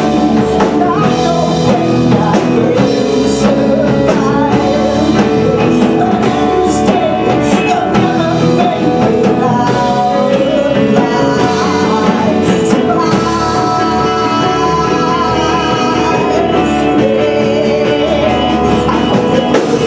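Live grunge-style rock band playing, with electric guitar, bass, keyboard and drums, and a woman singing loudly into a handheld microphone.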